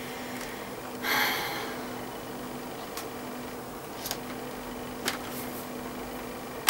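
A short, breathy exhale about a second in, over a steady low electrical hum, followed by a few faint clicks and knocks as a laptop is picked up and handled.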